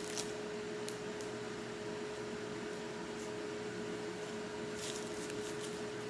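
Kitchen stove's range-hood fan running with a steady hum and one constant tone, with a few faint ticks about a second in and near five seconds.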